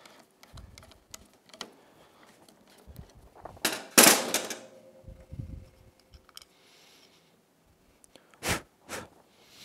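Workbench tool noises on the metal vapor separator tank of an outboard: light clicks and scrapes, a loud metallic clatter with a brief ringing tone about four seconds in, and two sharp knocks near the end.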